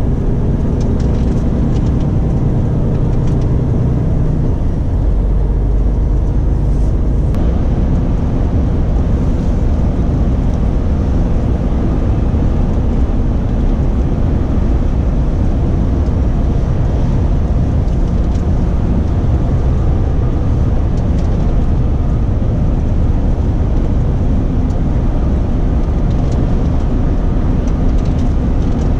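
Renault Trucks T-range lorry heard from inside the cab while driving: steady diesel engine and road rumble. The engine note changes about five seconds in.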